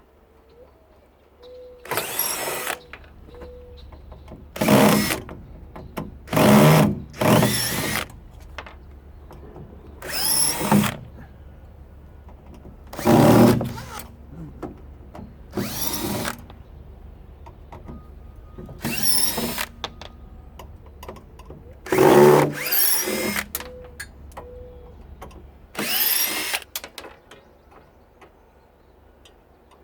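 Power drill-driver run in short bursts, about ten times, backing out the screws that hold a water heater's cover panel, each burst's motor pitch sweeping up and down.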